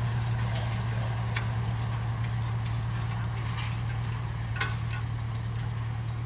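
Diesel engine of a mini excavator idling steadily, with scattered light clicks and taps from the work, the sharpest about four and a half seconds in.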